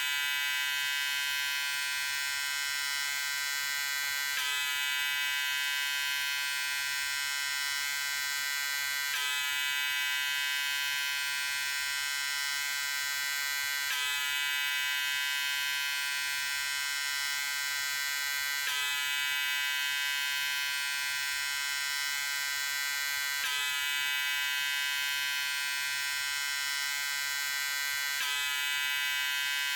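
Electric shaver buzzing steadily: an even, high buzz with many overtones, with a faint seam every four to five seconds where the recording loops.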